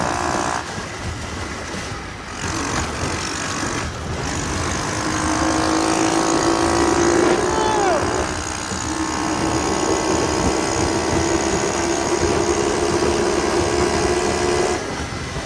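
Small minibike engine running hard under way, its pitch climbing about five seconds in and then holding steady. A short falling whine cuts across near the middle.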